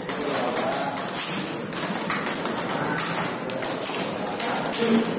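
Table tennis rally: a celluloid ball clicking sharply off paddles and the table, about two hits a second, with a hall's background chatter behind it.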